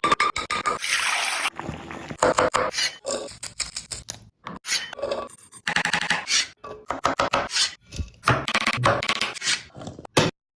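Kitchen cooking sounds: a quick succession of short utensil scrapes, clicks and knocks, each cut off abruptly, typical of a fast-cut cooking clip.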